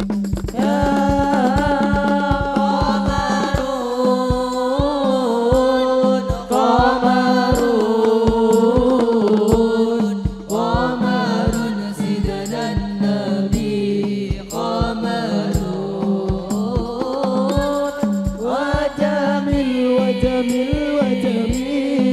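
A song played through an Ashley X-MAN 12 mixer with its built-in effects and no editing: a sung vocal in long phrases over a fast, steady drum beat.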